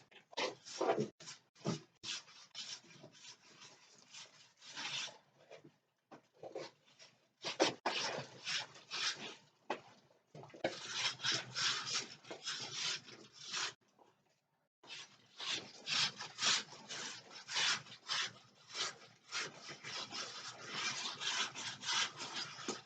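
Rapid, repeated scraping strokes against a concrete basement wall, in long runs with a short pause about two-thirds of the way through.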